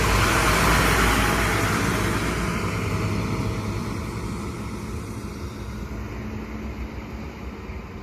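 Arriva LINT diesel multiple unit pulling away under power, its diesel engine and wheels on the rails loud as it passes close and then fading steadily as it draws away.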